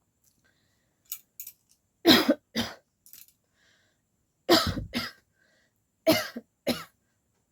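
A woman coughing on purpose, in three double coughs about two seconds apart, each pair a hard cough followed by a shorter one.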